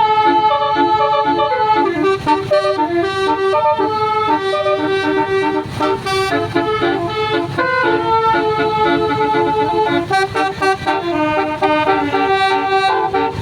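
Bus 'telolet basuri' multi-tone melody horn playing a tune of quick stepped notes, over a low rumble from the bus.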